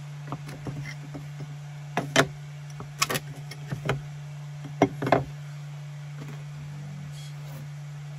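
Ceramic tiles being lifted, slid and set down on a plywood board: a series of short knocks and scrapes, the sharpest about two, three and five seconds in, over a steady low hum.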